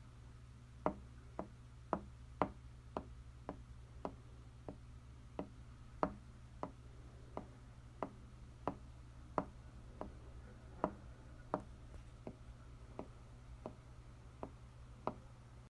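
Homemade foley footsteps: hard steps at a steady walking pace, about one and a half a second and slightly uneven, over a constant low hum.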